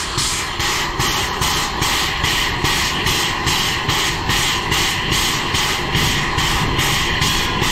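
Steam locomotive exhaust beating in an even rhythm, about three chuffs a second, over the rumble of the running train.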